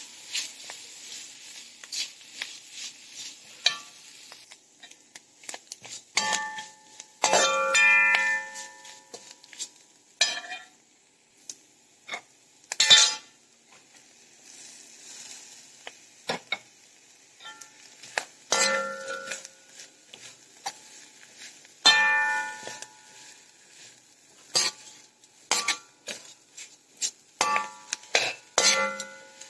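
Perforated metal spatula scraping and striking a metal wok while stir-frying clam meat, in irregular strokes, the wok ringing briefly after the harder knocks.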